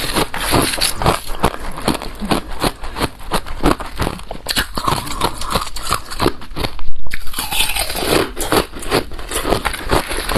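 Close-miked biting and chewing of balloon ice, frozen in a balloon: a dense run of crackling crunches, with a brief break about seven seconds in.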